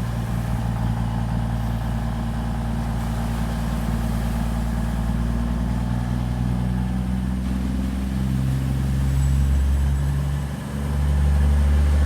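Class 220 Voyager diesel multiple unit pulling away from the platform, its underfloor Cummins diesel engines giving a steady low drone. The note steps in pitch a couple of times and grows louder in the last few seconds, with a brief dip just before.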